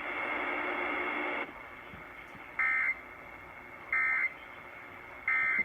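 EAS end-of-message data tones on a NOAA Weather Radio broadcast: three short, harsh digital bursts about 1.3 seconds apart, marking the end of the severe thunderstorm warning. They follow about a second and a half of steady radio hiss.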